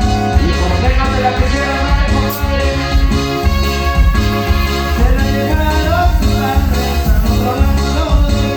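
A band playing Latin dance music, with a heavy pulsing bass beat.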